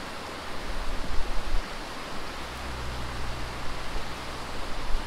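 Snowmelt-swollen creek rushing steadily over a riffle, with a low rumble underneath that swells about a second in.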